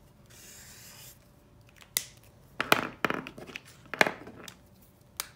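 Felt-tip marker rubbing across paper for about the first second, then a series of about five sharp clicks and knocks as the markers and their caps are handled and set down on the table.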